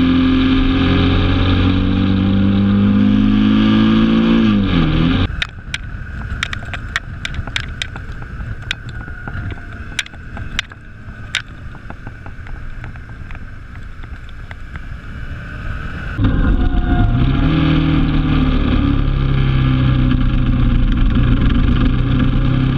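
Motorcycle engine running under way, its note rising and then dropping steeply about five seconds in as the throttle is closed. Then for about ten seconds there is a quieter, muffled rush of wind with scattered sharp clicks, before the loud engine note comes back and runs fairly steady.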